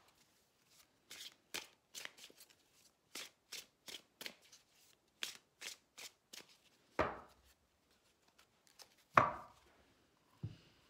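A deck of tarot cards being shuffled by hand: a quick run of light card clicks, then two louder thumps about seven and nine seconds in.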